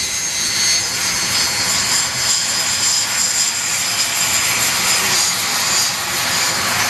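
Steady aircraft engine noise, a continuous rushing sound with a faint high whine.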